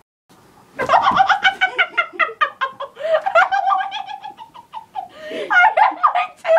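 Children laughing hard in long runs of rapid, high-pitched giggles, starting about a second in.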